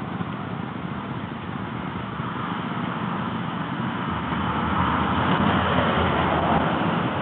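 A road vehicle going past: a steady hiss of tyre and engine noise that swells about halfway through and starts to fade near the end.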